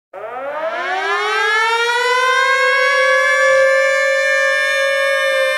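Air-raid siren winding up, rising in pitch for about a second and a half and then holding a steady wail, as the intro of a wrestling entrance theme.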